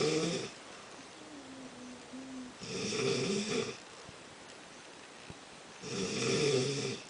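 A man snoring in his sleep: loud snores on each breath, about three seconds apart. The first ends about half a second in, the second comes around three seconds and the third near the end. Between the first two there is a softer hum held at one pitch.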